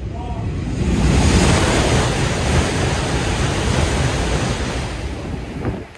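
JR East E5 series Shinkansen passing straight through a station at about 295 km/h: a loud rush of air and wheel-on-rail noise. It builds over the first second, holds steady, and cuts off abruptly near the end as the last car clears.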